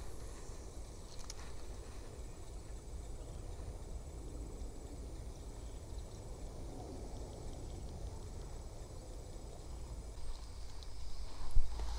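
Outdoor ambience: a low wind rumble on the microphone with a faint, steady high insect whine through the first half. A sharp knock sounds near the end.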